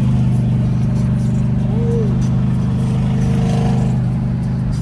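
Car engine running steadily, a low even drone.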